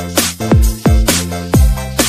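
Electronic dance background music with a deep kick drum about twice a second, bright clap or hi-hat hits between the beats, and held synth chords.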